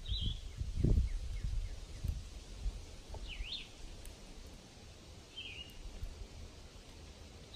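A bird chirps several times in short, high calls; one call about three seconds in swoops down and back up. Low rumbling thumps in the first couple of seconds are the loudest sound.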